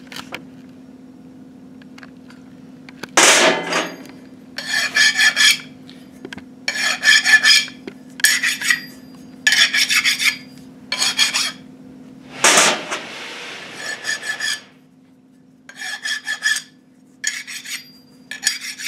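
Hand file stroking across the edges of a factory GM steel connecting rod cap, deburring it and breaking the edges before the cap is cut. The strokes come as short rasps about a second apart, with a pause about two thirds of the way through. Two louder scrapes come about three seconds in and near the middle.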